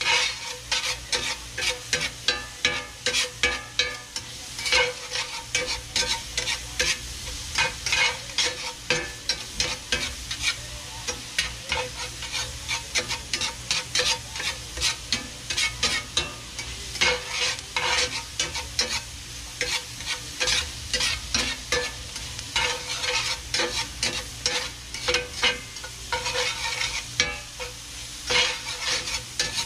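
A slotted metal spatula scraping and tapping against a cast-iron skillet in frequent irregular strokes, stirring dove breast pieces with onion and garlic that sizzle steadily in oil.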